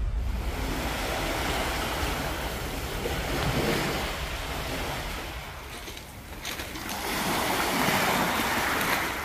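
Small sea waves washing up onto a pebble beach, swelling louder near the end.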